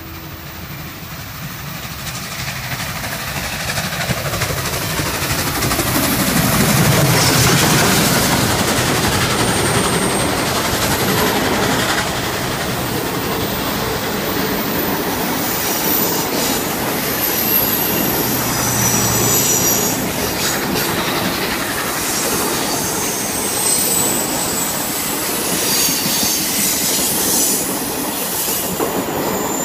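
Passenger train passing close by: a rising rumble that peaks about seven seconds in with a falling pitch, then a steady roll of passenger cars with wheels clicking over the rail joints and high-pitched wheel squeal coming and going.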